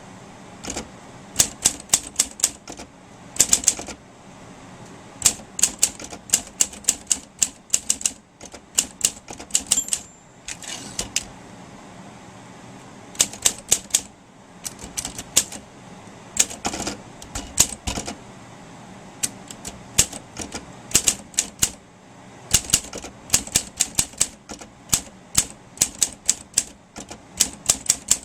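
Olympia SM3 Deluxe manual typewriter being typed on. Keys strike in quick runs of sharp clacks, broken by short pauses of a second or two.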